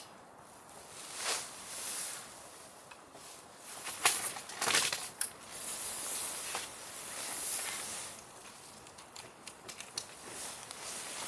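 Rustling and handling of camping gear, with swells of hiss and scattered sharp clicks and knocks, the loudest cluster about four to five seconds in.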